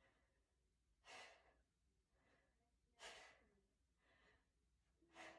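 A woman's soft, audible breaths while she holds a hollow-body ab position: three stronger breaths about two seconds apart, with fainter breaths between them.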